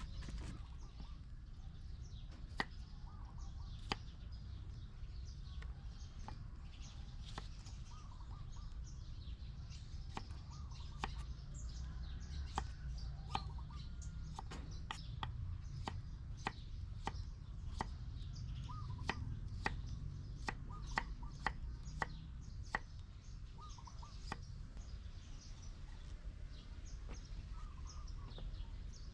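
Irregular sharp taps or clicks, about one or two a second, over a low steady rumble, with faint chicken-like clucks and chirps in between.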